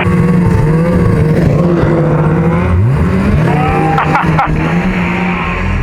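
Snowmobile engine running, its pitch wavering and dipping then rising again about three seconds in, with a couple of brief knocks about four seconds in.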